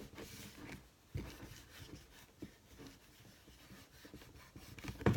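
Faint rubbing and handling of a plastic compact film camera as it is wiped clean, with a few small knocks and a louder knock near the end.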